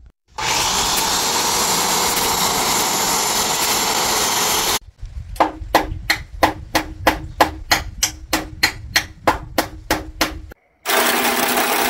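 A sliding miter saw runs and cuts through a wooden board for about four and a half seconds. After a short break, a hammer strikes nails in a steady run of about eighteen quick blows, roughly three a second. Near the end a power tool starts up again and runs steadily.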